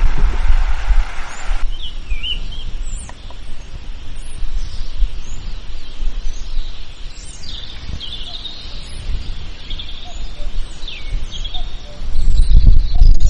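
Forest ambience: small birds chirping with many short, high chirps and trills, over a low wind rumble that is loudest at the start and again near the end. A steady hiss cuts off suddenly about a second and a half in.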